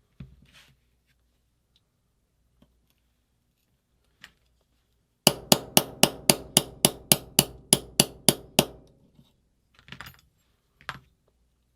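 A hammer taps a pin punch to drive a pin out of an Angel LCD paintball marker: a quick run of about fifteen ringing metal taps, about four a second, with a few lighter knocks before and after.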